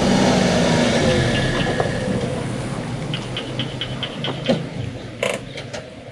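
Toyota car slowing down, its engine note falling in pitch and fading over the first two or three seconds, with a few short high ticks and clicks after it.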